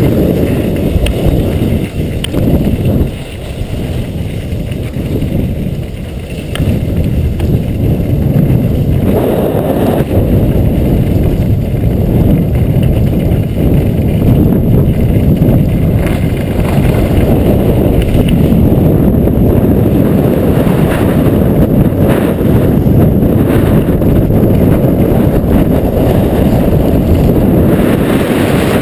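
Wind rushing and buffeting over a helmet camera's microphone as a skier goes fast downhill, a deep steady rumble that dips for a few seconds early and then grows louder and evener about eight seconds in.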